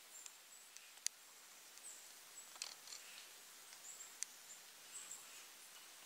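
Faint, very high, thin chirps of small songbirds, scattered every second or so over a soft forest hiss, with two sharp ticks, about a second in and a little past the middle, as the loudest sounds.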